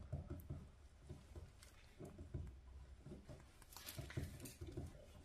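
Faint, irregular rubbing and a few soft clicks from a tire plug insertion tool being forced by hand into a puncture in the tread, the plug going in stiffly against the rubber.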